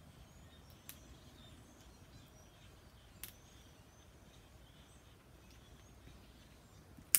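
Faint bird chirps over quiet room tone, with light clicks about a second in and just past three seconds, and a sharper click at the very end.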